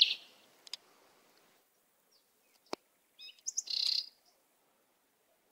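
Small birds chirping: a few high calls at the start and a quick run of chirps about three to four seconds in, with a single sharp click between them.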